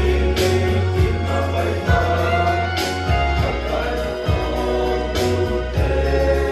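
Mixed youth choir singing a gospel song together over amplified backing music, with a held bass line and a cymbal crash about every two and a half seconds.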